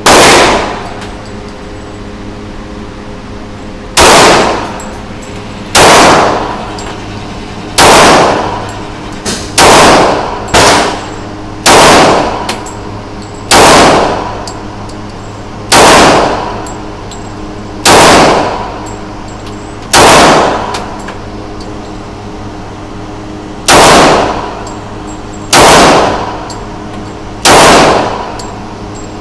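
Gunshots fired one at a time, about fourteen shots mostly one to four seconds apart, each very loud with a short ringing tail. A steady low hum runs underneath.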